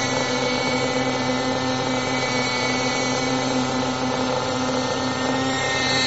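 Radio-controlled tandem-rotor model helicopter running on the ground: its motor and rotors make a steady whine that holds one pitch throughout.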